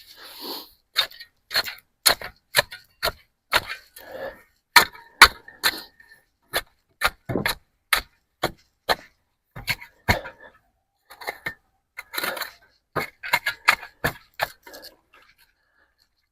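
Irregular series of sharp knocks, roughly one to two a second with short pauses, some with a brief ring, from hands-on fence repair work. The knocks stop a little before the end.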